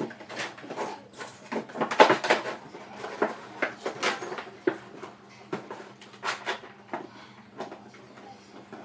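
A dog biting and pushing an empty plastic milk bottle about, the thin plastic crackling and knocking in irregular bursts. The crackles are loudest about two seconds in and thin out toward the end.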